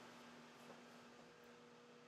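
Near silence with a faint steady hum from a microwave oven running.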